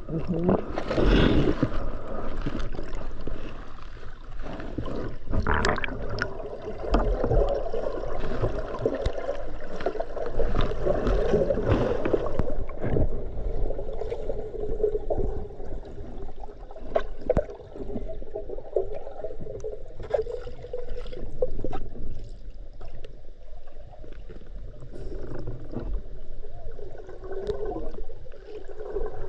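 Underwater water movement and gurgling as a spearfisher swims, with many scattered small clicks; it gets quieter about halfway through.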